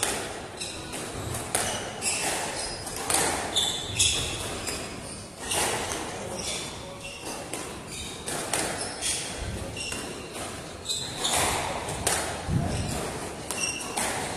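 A squash rally: the ball smacks off rackets and the walls and bounces on the hardwood floor many times, with the players' shoes squeaking in short high chirps, all ringing in the enclosed court.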